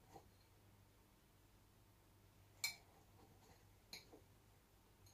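Near silence with two faint, brief clicks about two and a half and four seconds in: a spoon touching the bowl as coconut-jaggery filling is scooped out.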